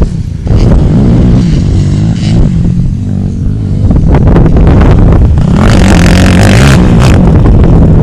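ATV engine running hard, revving up and down with the throttle, loud from about half a second in. A loud rushing hiss joins it for about a second near the end.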